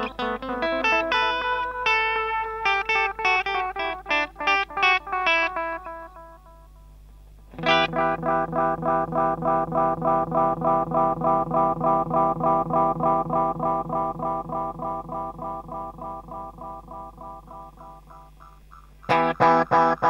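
Electric guitar through a vintage Ibanez AD9 analog bucket-brigade delay pedal (MN3205 chip): first picked notes trailed by long delay echoes, then, about 7 s in, a chord whose repeats are turned up to self-oscillation, echoing over and over at an even pace and slowly fading. Near the end a louder chord starts repeating through a Boss DM2 clone delay (two MN3008 chips), also set to self-oscillate.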